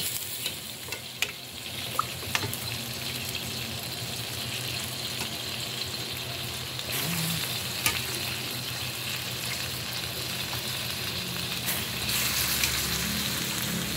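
Pre-boiled chicken pieces sizzling as they fry in a wok of tomato sauce and onions, with a few sharp knocks against the pan. The sizzle grows louder about seven seconds in and again near the end.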